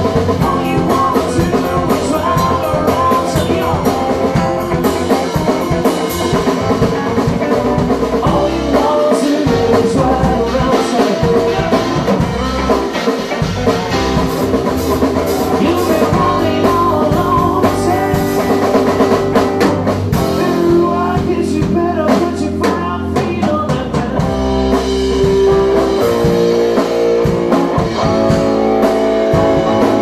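Live rock band playing loudly: a drum kit with an electric guitar.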